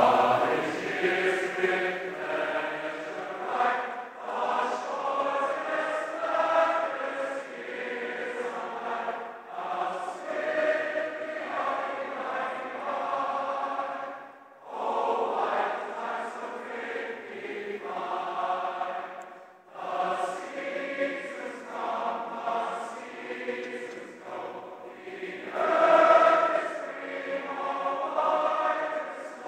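Large combined college glee club singing a slow hymn, in sustained phrases of about five seconds with short breaks between them.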